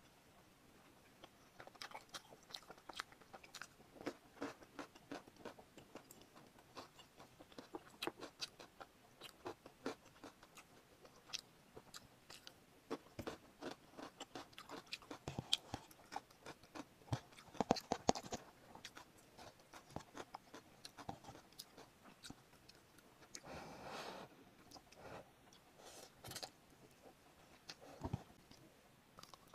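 Close-miked mouth sounds of someone eating spicy instant noodles: irregular small wet clicks and smacks of chewing, with one longer, noisier mouth sound a few seconds before the end.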